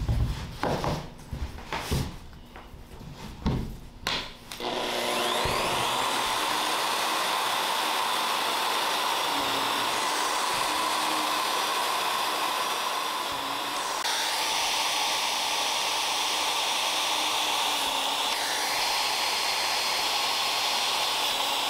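A few knocks and handling noises, then an electric plunge router starts about four and a half seconds in and runs steadily, boring shallow recesses around the screw heads in pine floorboards for penny inlays.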